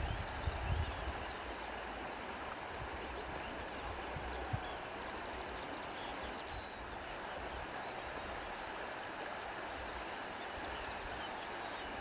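Steady wind noise, an even hiss, with a couple of low gusts buffeting near the start and faint short high chirps scattered through it.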